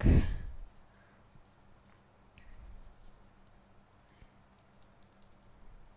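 Fine tip of a Stampin' Blends alcohol marker scratching faintly on cardstock in short colouring strokes. A soft thump sounds right at the start.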